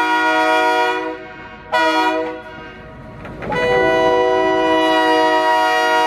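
Leslie RS3K three-chime air horn on a diesel switcher sounding a chord: a blast that cuts off about a second in, a short toot a little later, then a long blast held from about three and a half seconds in.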